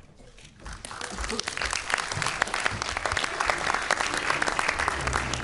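Audience applauding: the clapping starts about half a second in and swells within a second or two into steady, dense applause.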